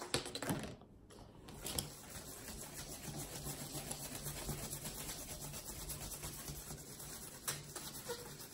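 Felt-tip marker scratching across a paper plate as a drawing is made. A few knocks and rustles of the plate being handled come in the first two seconds.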